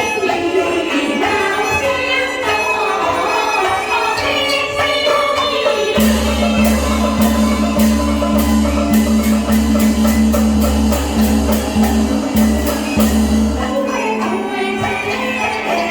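Live Teochew opera music: a melodic passage with singing and accompaniment, then about six seconds in a loud percussion passage with a deep drum and rapid sharp strokes, before the melody returns near the end.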